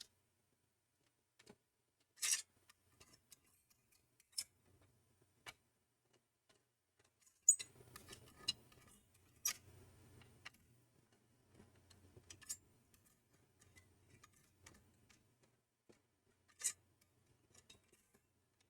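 Faint, scattered metallic clicks and ticks from a heat sink and its screws being handled and fitted on a Mac Pro 5,1 processor tray, with a soft low rumble of handling in the middle stretch.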